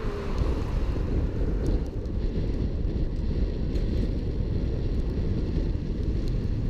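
Steady low rumble of wind buffeting the microphone of a camera mounted on the bonnet of a moving car, mixed with road noise from tyres on a wet street.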